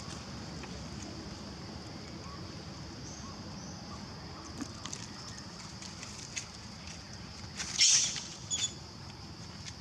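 Macaques calling: about eight seconds in, one short harsh cry, followed by a brief high squeak. A steady high hiss runs underneath.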